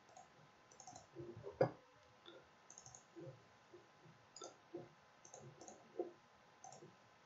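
Faint computer mouse clicks, about a dozen at irregular intervals, with the loudest one about one and a half seconds in.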